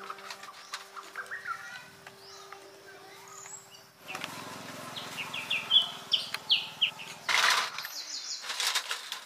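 Birds chirping in short high calls, with two short loud rushes of noise near the end.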